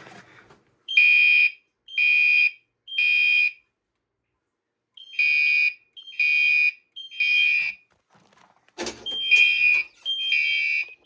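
Fire alarm system in alarm after its pull station is pulled: Gentex Commander 3 horns set to code 3, sounding the temporal-three evacuation pattern of three short blasts, a pause, then three more, repeated. A knock sounds about nine seconds in.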